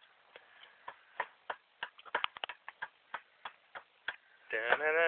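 Irregular small sharp cracks and snaps of dry wood, about fifteen of them at uneven spacing. A person's voice starts about four and a half seconds in.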